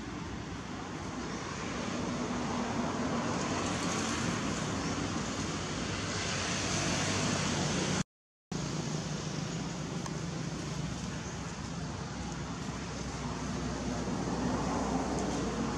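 Steady background rumble and hiss of distant road traffic, which cuts out completely for about half a second near the middle.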